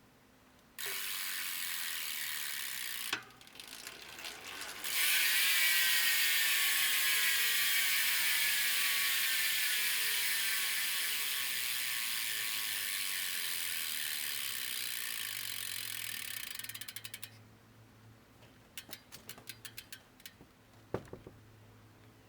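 Hope Pro 2 SS/Trials rear hub freewheeling, its pawls clicking over the ratchet ring in a loud, fast buzz: a short spin first, then a long one. As the wheel coasts down, the clicking slows until it breaks into separate clicks and stops near the end.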